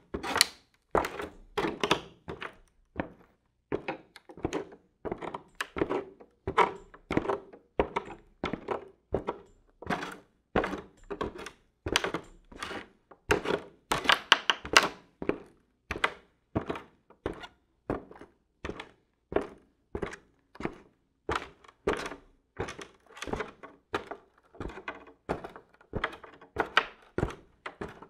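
Boots walking at an even pace on creaky wooden floorboards, about two heavy steps a second. The boards creak under some of the steps.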